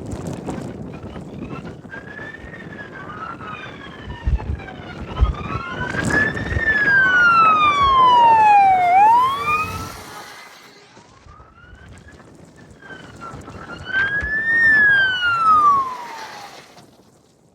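Fire apparatus wailing sirens, slow rising and falling sweeps overlapping one another, loudest as one vehicle passes about seven to nine seconds in and another about fifteen seconds in. Wind buffeting the microphone.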